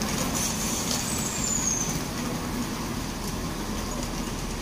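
Stationary diesel multiple unit at the platform, its engine running with a steady low hum, and a short high whistle falling in pitch about a second in.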